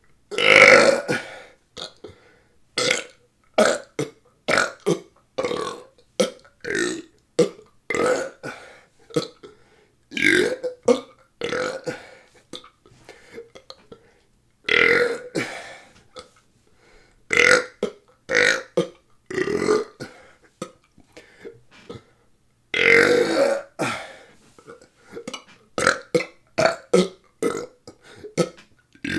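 Deliberate burping: a long string of short, rapid belches, about one to two a second, with brief pauses between them and a few longer, louder burps among them.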